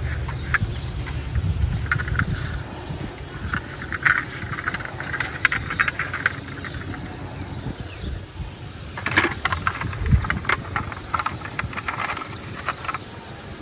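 Plastic toy model cars being handled and rolled on a surface: a low rumble in the first few seconds, then scattered clicks and rattles, busiest about nine seconds in.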